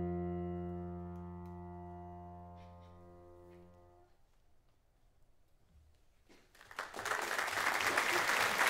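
The final chord of a grand piano, low and full, ringing and slowly dying away, then damped about four seconds in. After a short pause, audience applause breaks out and keeps going.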